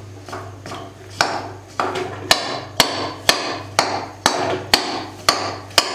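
A steel spoon stirring jaggery melting in ghee in an aluminium kadhai, knocking against the pan about twice a second in sharp metallic taps, over a steady low hum.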